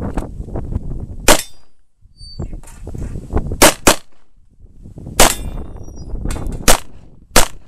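Handgun shots: about seven, fired at uneven intervals, some in quick pairs about a third of a second apart.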